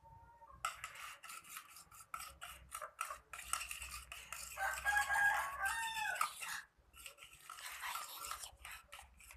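Slime mixture of clear glue and activator being stirred in a container until it clumps, with the stirrer tapping and scraping against the container in quick irregular clicks. From about four and a half seconds in, a loud drawn-out call with several tones sounds over the stirring for about two seconds, bending down in pitch at the end.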